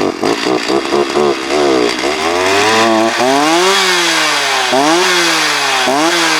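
Stihl two-stroke chainsaw running, uneven and choppy for the first couple of seconds, then revved up and let back down about three times.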